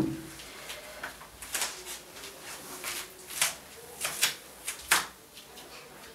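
Scattered soft knocks and rustles in a small room: bare footsteps on the floor and clothing moving as two people get up and walk out, about eight light taps irregularly spaced.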